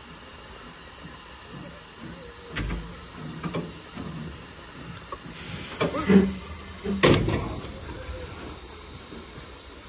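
Hunslet quarry saddle-tank steam locomotive standing with steam up, hissing steadily, while metal clanks and knocks come from the footplate as the controls are worked. A short louder hiss comes about five and a half seconds in, and the loudest clank about seven seconds in.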